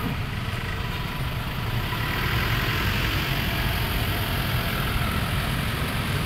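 Truck engine running steadily at low revs, a low hum with some hiss, as a light truck pulls slowly away.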